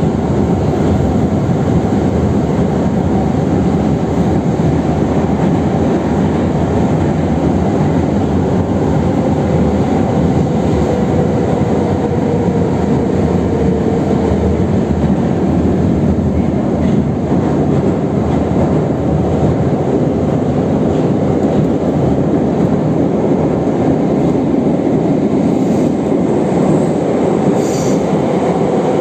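Metro train of the 81-717/714 family running steadily on the line, with a continuous rolling rumble of wheels on rail and a faint wheel squeal from about ten to fifteen seconds in.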